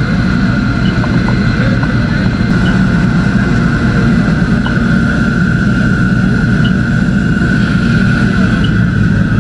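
A loud engine running steadily, with a held high whine over a low hum, and a faint short chirp about every two seconds.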